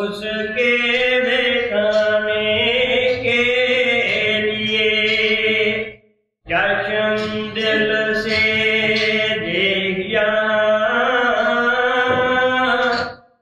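A voice chanting a devotional hymn (bani) in long held melodic lines: two sung phrases, with a brief pause about six seconds in.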